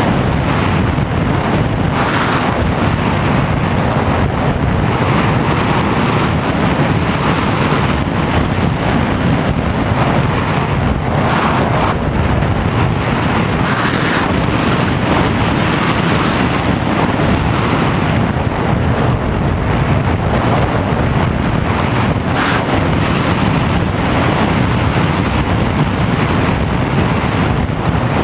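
Wind noise from air rushing over the onboard camera's microphone on a Sky Surfer RC glider gliding with its motor off: a steady rush with a few brief louder swells.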